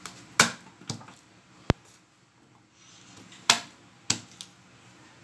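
Garlic cloves being crushed with the flat of a kitchen knife on a wooden cutting board: a handful of sharp knocks, the loudest about half a second in and again about three and a half seconds in.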